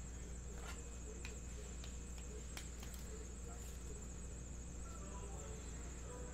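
Low background hum and a steady high-pitched whine, with a few faint clicks and rustles of trading cards and plastic sleeves being handled.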